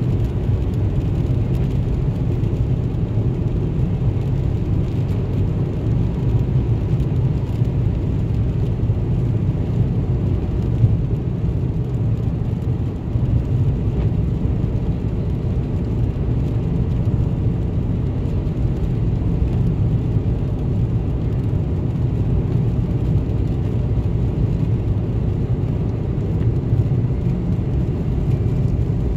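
Steady low drone of a vehicle driving at highway speed on wet pavement, heard from inside the cabin: engine and tyre noise.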